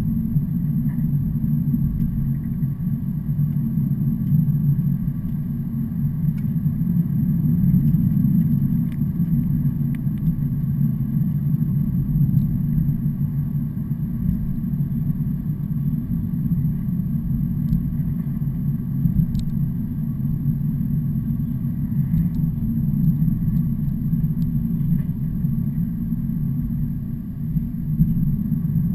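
Steady low rumble of a truck running on the road, engine and road noise holding even with no rise or fall.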